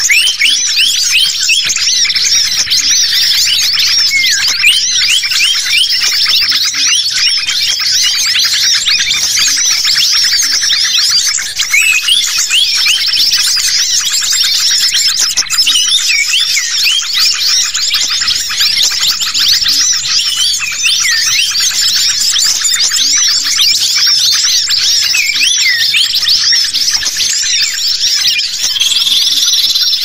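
A dense, unbroken chorus of common ioras (cipoh) and other small songbirds calling at once: high, rapid chirps and short rising and falling whistles overlapping without pause. It is a layered bird-lure recording of agitated calls, used to draw wild birds in.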